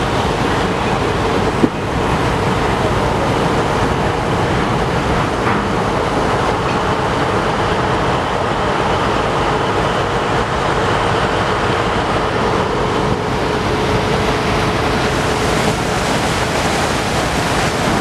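Steady rumble and rush of a sightseeing boat under way, engine noise mixed with water, with a faint steady hum throughout.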